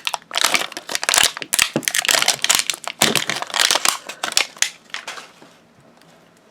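Crinkly plastic wrapping of an LOL Surprise toy package being handled and crumpled, a dense crackle that dies away about five seconds in.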